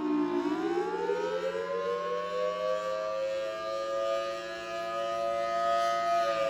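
Outdoor warning siren sounding a wail. Its pitch bottoms out just after the start, climbs over about two seconds to a high steady tone, holds, then starts to fall again near the end.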